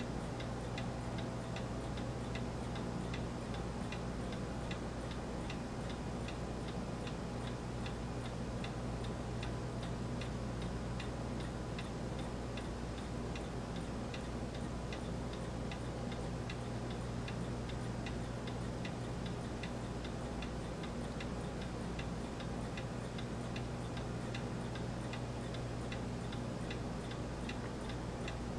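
Faint, evenly spaced ticking, about two ticks a second, over a steady low hum.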